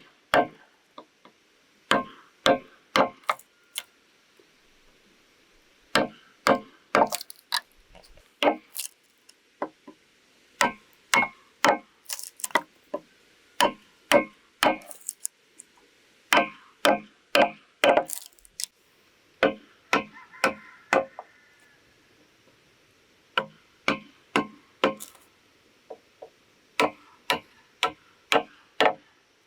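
Repeated sharp strikes on bamboo, in bursts of several quick blows with short pauses between.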